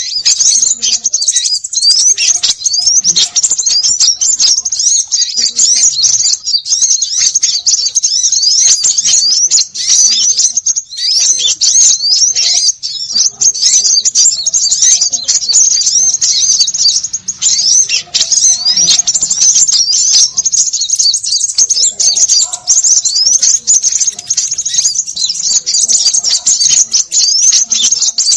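A dense, noisy chorus of many small birds chirping, with quick, high, rising chirps overlapping each other without a break. It is a bird-lure recording of small birds calling together.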